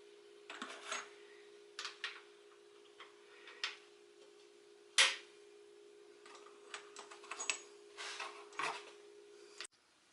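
Light metallic clicks and taps of valvetrain parts being handled and fitted into a Ford 302 V8 engine, with one sharper click about five seconds in. A steady hum runs underneath and cuts off abruptly near the end.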